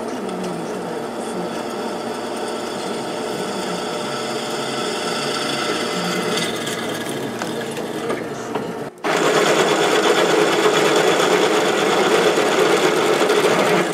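Drill press running, its twist bit cutting into a welded steel plate with a steady whine. About nine seconds in the sound cuts out for an instant and comes back louder and harsher, as a larger bit bores the hole wider.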